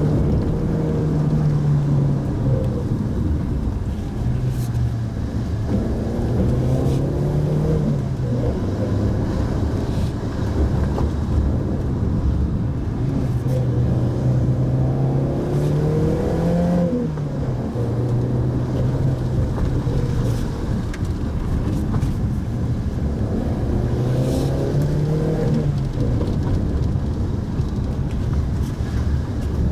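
Mitsubishi Pajero Mini's small engine running while driving, its note rising and dropping back several times as the revs change, over steady road noise.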